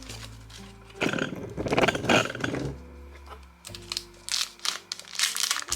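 Plastic packaging crinkling and rustling as it is handled, in two spells, the first about a second in and the second near the end, over soft background music.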